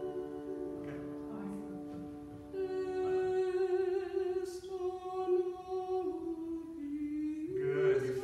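A piano chord fading out, then voices singing one long held note with a slight waver, starting about two and a half seconds in.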